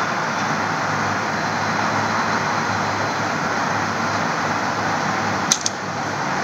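Steady background noise with no speech. Two quick light knocks come about five and a half seconds in, as the rubber-strapped smartwatch is set down on its cardboard box.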